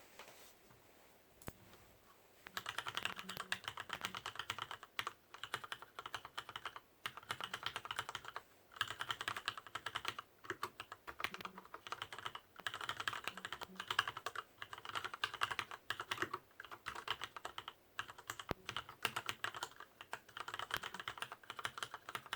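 Fast typing on a Leopold FC750R mechanical keyboard with Cherry MX Red linear switches: rapid key clacks in bursts separated by short pauses, starting a couple of seconds in.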